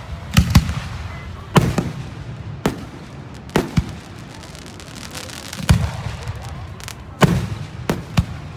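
Fireworks going off: about nine sharp bangs at uneven intervals, each followed by a low rumbling echo, with two close together near the end.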